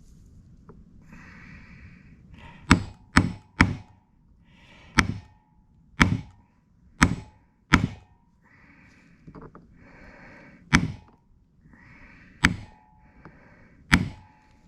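About ten sharp taps of a hammer on a 5/16 punch, driving a new Welch plug into an outboard carburetor body, some with a brief metallic ring. Each blow flattens the plug's dome so it expands in its seat and seals.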